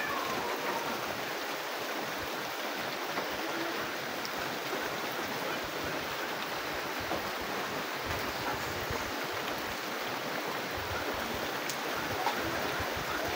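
Steady rain falling on a garden of broad banana leaves and other foliage, an even, unbroken hiss.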